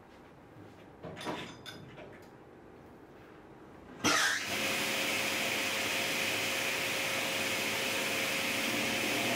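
A few light knocks of wood being handled. About four seconds in, a sliding table saw is switched on and runs steadily with a loud whirring hiss and a faint hum.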